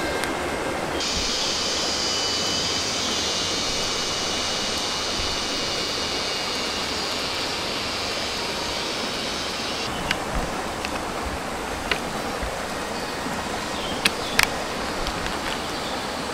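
Shallow forest stream running over rocks, a steady rush of water. Over it, a high steady shrill stops about ten seconds in, and a few sharp clicks come in the later part.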